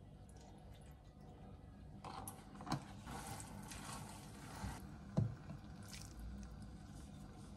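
Wooden spoon stirring thick, sticky macaroni and cheese in a stainless steel saucepan, wet squelching and scraping, with two sharp knocks about a third and two thirds of the way through.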